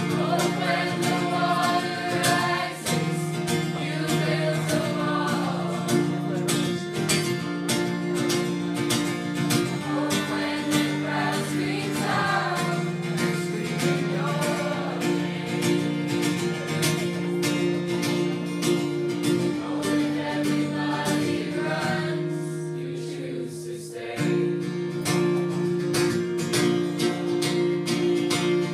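A mixed teenage choir singing a song in unison with acoustic guitar strumming chords and a cajón tapping a steady beat. The music thins briefly shortly before the end, then comes back in full.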